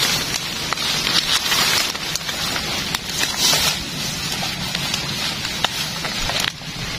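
Rustling of grass and leaves, an uneven hiss that swells and fades, with scattered light crackles and clicks.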